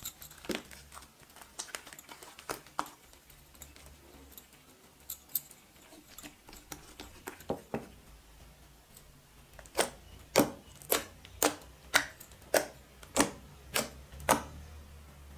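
Thick white shampoo-and-glue slime being poked and pressed with the fingertips, giving sharp wet pops. Scattered softer sticky clicks come first; then, about ten seconds in, about nine loud pops follow, roughly two a second.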